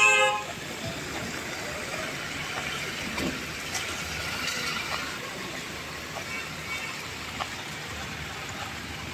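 Steady hiss of heavy rain falling. A vehicle horn sounds at the very start and cuts off within the first half second.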